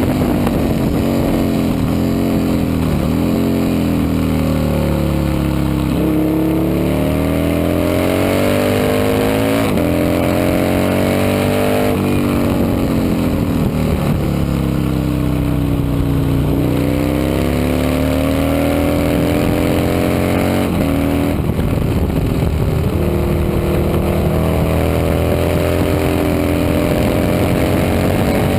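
Racing motorcycle engines running hard on track, their pitch climbing and then dropping over and over as they accelerate, shift gears and back off, with sudden jumps in pitch about 6, 12 and 21 seconds in.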